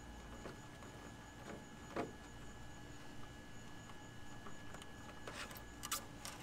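Hand body reamer twisting through a clear polycarbonate RC wing, giving a sharp click about two seconds in and a few short plastic crackles near the end, over a steady low background hum.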